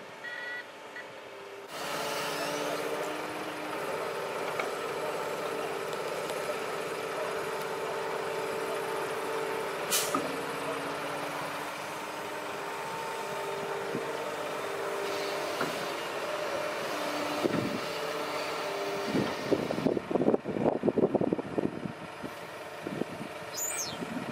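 Doosan DX225LCA excavator's diesel engine running steadily under hydraulic load, its pitch shifting as the arm works, with a sharp clank about ten seconds in. Near the end come loud rough bursts of scraping and crunching as the bucket digs into the sand pile.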